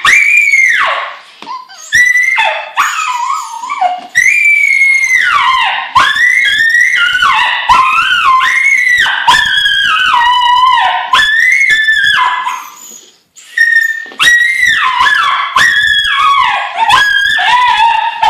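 Miniature Schnauzer screaming in long, high-pitched, wavering cries that slide up and down, nearly without a break apart from a few short pauses: excited begging for a toy hamster.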